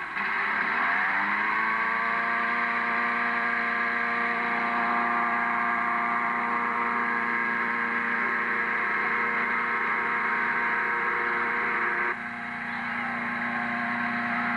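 Engine-driven cold-air inflator fan revving up over the first second or two, then running steadily at high speed, blowing cold air into a hot-air balloon envelope during the cold inflation. About twelve seconds in, it drops slightly in loudness and keeps running.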